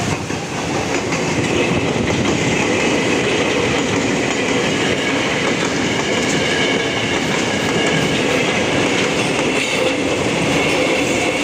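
KRL commuter electric multiple-unit train, set TM6018, passing close at speed, its wheels clattering over the rail joints, with a steady high whine from about two seconds in.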